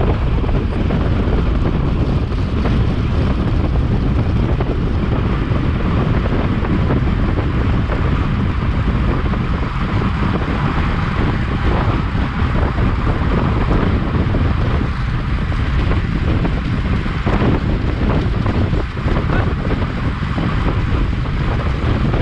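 Wind buffeting the microphone: a steady, loud, low rumble with no break.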